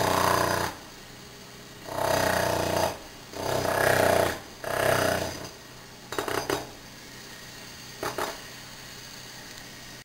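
Electric jackhammer hammering in bursts: four bursts of about a second each in the first five and a half seconds, then two short bursts around six and eight seconds in.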